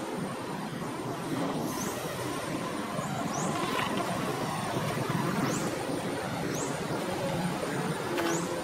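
Steady low rumble of distant road traffic, with five short, high chirps, each rising in pitch, spread through it.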